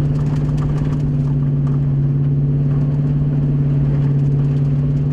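Chase vehicle's engine and road noise heard from inside the cabin while driving: a steady, unchanging low drone.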